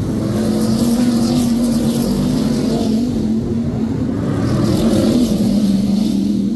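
BriSCA F1 stock cars racing past, their big V8 engines running hard under load; the steady engine note drops in pitch near the end.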